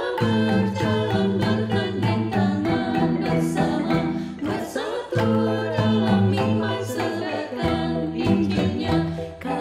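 Kolintang ensemble of wooden xylophones playing a hymn, the melody instruments struck in quick repeated strokes over sustained bass notes, with voices singing the hymn in Indonesian over it. The music eases briefly between phrases about five seconds in.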